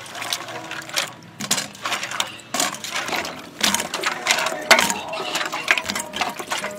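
Hands stirring and rubbing cut screw pine fruit pieces in water in a metal bowl: irregular splashing, with the firm wet pieces clacking against each other and the bowl.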